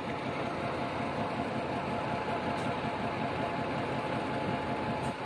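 Diesel freight locomotive running steadily as it pulls a train of tank cars slowly past, an even engine rumble with a faint steady hum.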